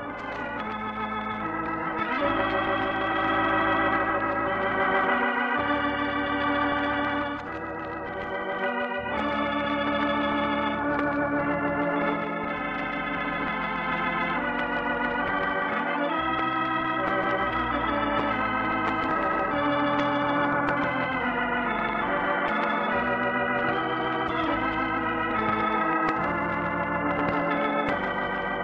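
Organ playing the program's closing theme: sustained chords with a wavering vibrato over a moving bass line, changing every second or two, with a brief dip about seven seconds in.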